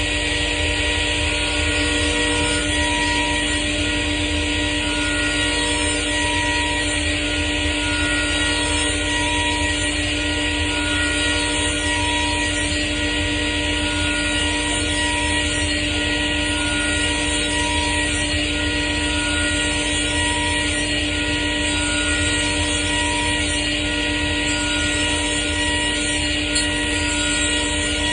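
Table saw running steadily, its motor and spinning blade making a constant whine over a broad hiss.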